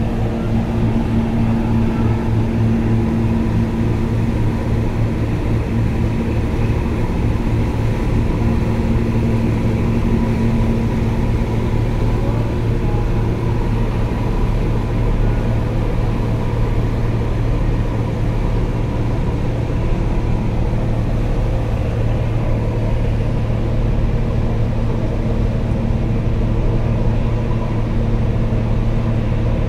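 Ship engines running, a steady deep drone with an even low hum that holds unchanged throughout.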